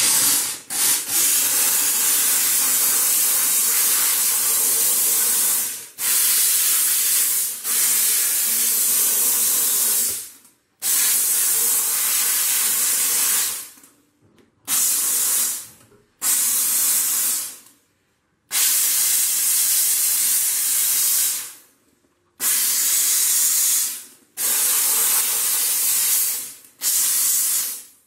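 Sauber Brilliance steam cleaner jetting steam with a loud hiss, in a series of bursts lasting about one to five seconds that start and cut off sharply.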